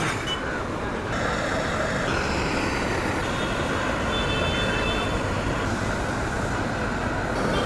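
Steady roadside street and traffic noise.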